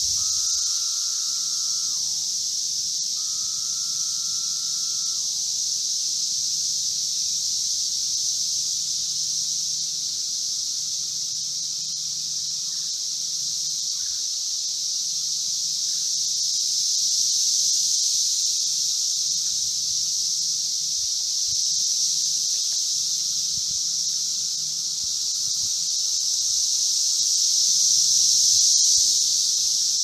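Brood V 17-year Magicicada periodical cicadas chorusing: a loud, steady, high-pitched drone that swells a little now and then. In the first few seconds two separate calls of about two seconds each stand out lower down, each dropping in pitch at the end.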